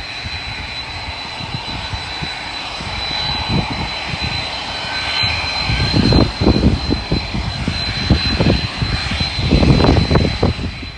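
Fixed-wing aircraft engines running steadily, with a thin high steady whine over the engine noise. Wind buffets the microphone in gusts, heaviest about six seconds in and again near the end, and the sound cuts off suddenly at the end.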